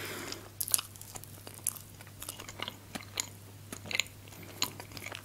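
Close-miked bite into a pastry tartlet topped with cream and fruit, followed by chewing with scattered short mouth clicks.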